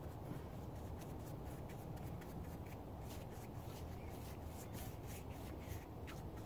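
A hand stroking and rubbing over a carved wooden dog sculpture: a run of soft, scratchy brushing strokes, faint over a steady low hum.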